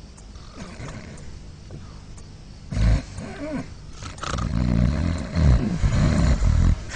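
A person snoring loudly: a sudden snort about three seconds in, then a long, loud snore through the second half.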